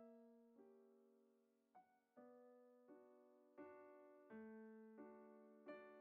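Quiet background piano music: slow notes struck about once a second, each ringing out and fading.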